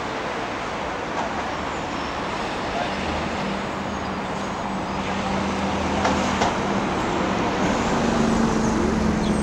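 Steady city street traffic noise. A vehicle engine's low hum comes in about three seconds in and grows a little louder towards the end.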